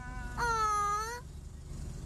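A sloth gives one long, high-pitched cry about half a second in, over a steady low rumble.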